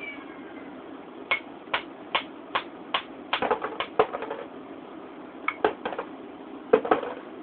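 A series of light, sharp taps, first five evenly spaced at about two a second, then in quick clusters, over a steady low hum.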